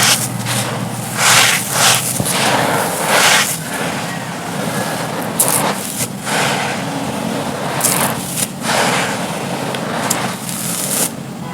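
Dry, brittle crumbling material being crushed and crumbled: a run of crunchy, crackling bursts roughly a second apart, with grainy rustling between them.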